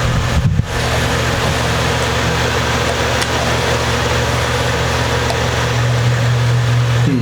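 A steady low hum with a constant hiss behind it, unchanging throughout.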